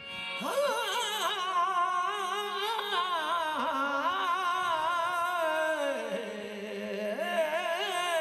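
Qawwali-style devotional singing: one voice holds a long wordless melismatic line, wavering and sliding in pitch, over a steady held drone.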